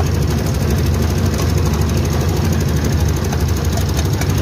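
Motor-driven sugarcane crusher running steadily with a fast, even rattling chug from its drive and steel rollers as cane stalks are fed through and pressed.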